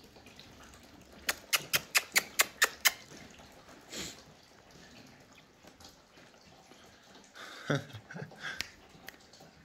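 A quick run of about eight sharp clicks, roughly five a second, lasting a second and a half, followed by a single click and later a few softer knocks.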